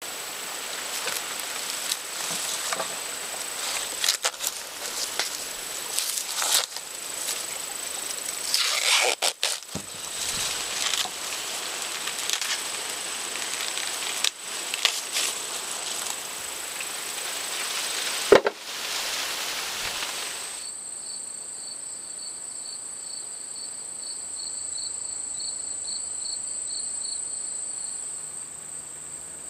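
Crickets and other insects trilling steadily, with irregular clicks and crackles over roughly the first twenty seconds. After that only a steady high trill is left, with a pulsing chirp under it.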